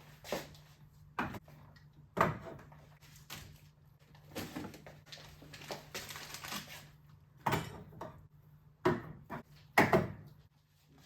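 Household handling noises in a small room: a run of knocks and clatters, like cupboard doors and drawers being opened and shut and things set down, the sharpest about two seconds in and near the end, over a steady low hum.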